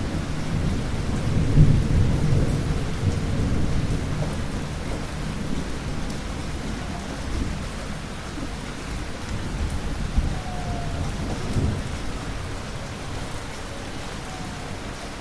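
Thunder rumbling over steady rain. The rumble is loudest about two seconds in and slowly fades, leaving the rain.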